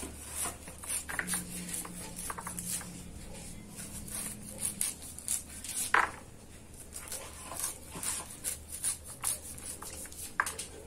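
A kitchen knife cutting the kernels off a cob of fresh corn, in irregular short scrapes and crunches, with a sharper knock about six seconds in.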